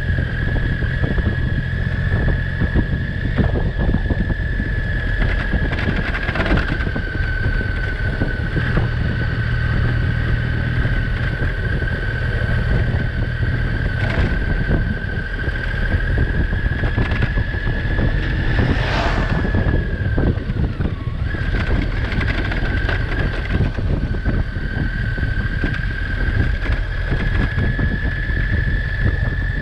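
Motorcycle engine running at a steady cruising pace, with wind rush on the microphone and a steady high whine that dips briefly about twenty seconds in. A short rushing swell comes about nineteen seconds in.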